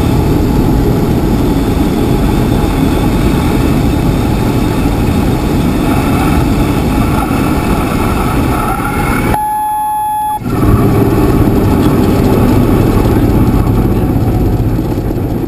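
Cessna 172RG gliding in and landing with the engine throttled back for a simulated engine failure: a steady low rumble of the idling engine, propeller and rushing air. About two-thirds through, the rumble cuts out for about a second while a single steady tone sounds, then the rumble comes back.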